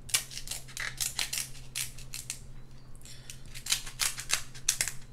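Kitchen scissors snipping and cracking through a king crab's leg shell: a run of sharp clicks and snaps, pausing briefly in the middle.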